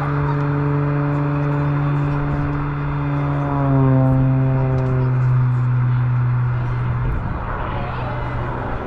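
Propeller engine of an aerobatic plane flying past: a steady droning tone that drops in pitch about three and a half seconds in as the plane passes, then fades out near the seven-second mark.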